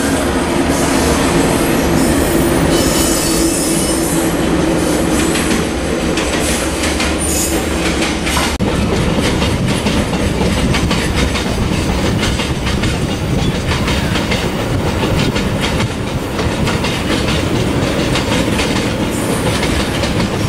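KiwiRail diesel locomotive passing at the head of a coal train, its engine humming with high wheel squeal for the first eight seconds or so. Then a steady clickety-clack of loaded coal hopper wagons rolling over the rail joints.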